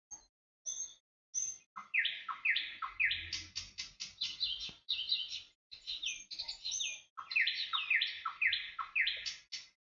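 Bird song: rapid runs of high chirps, each sliding downward in pitch, in phrases broken by short pauses.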